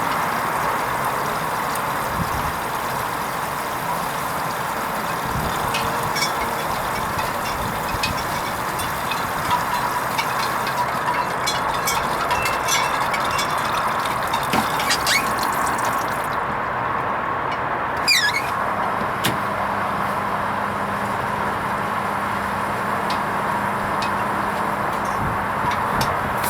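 Hoover Vision HVP16 washing machine running its wool rinse programme: a steady rushing noise of water in the machine, with scattered small clicks and knocks. A low steady hum comes in about two-thirds of the way through.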